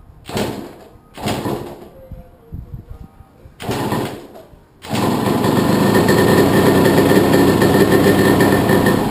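Freshly rebuilt Yamaha YZ125 two-stroke single-cylinder engine being kickstarted: three kicks each give a short burst, then about five seconds in the engine catches and runs steadily.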